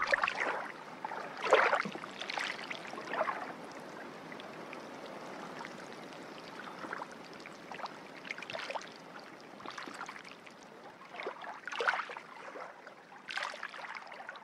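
Water splashing and sloshing in irregular swishes over a steady hiss, about a dozen surges with the strongest near the start.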